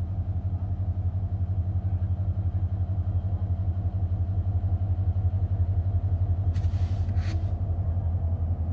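Diesel locomotive engine idling at a standstill, a steady low throb. Two short hisses come near the end.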